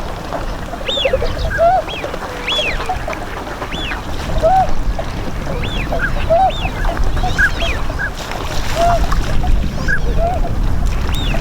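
A flock of Bewick's swans calling, many short arched honking calls overlapping, some low and some higher-pitched, over a low steady rumble.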